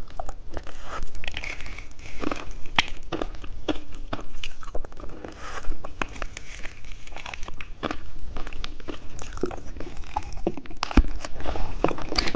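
Close-up crackling and crinkling as a lollipop is dipped into popping candy, with many sharp, irregular clicks throughout.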